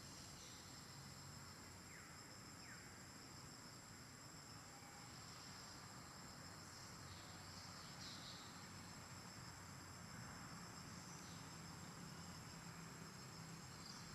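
Faint, steady high-pitched trilling of crickets, with a few short chirps over it.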